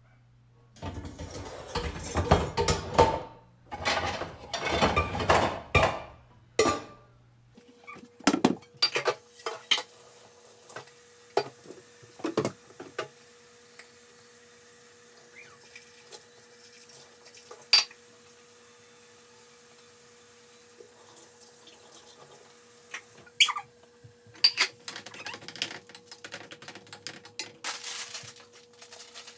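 Metal pots, lids and utensils clanking and clattering at the kitchen counter and sink in a string of separate knocks. Over the first several seconds there are spurts of rushing noise like water running into the sink, and a faint steady hum comes on about eight seconds in.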